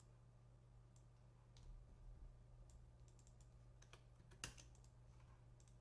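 Faint, scattered clicks of a computer mouse and keyboard, the loudest a little over four seconds in, over a low steady hum.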